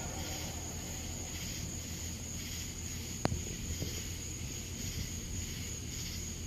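A low, steady rumble with a constant high, thin tone above it, broken by a single sharp click about three seconds in.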